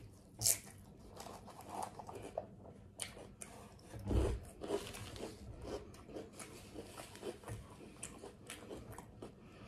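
Quiet, close-up eating sounds: chewing, lip smacks and soft crunches as a pickled pepper slice is eaten, with one louder mouth sound about four seconds in.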